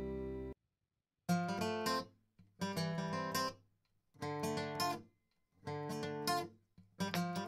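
Background music: acoustic guitar strumming in short phrases of about a second, each broken off by a stretch of silence.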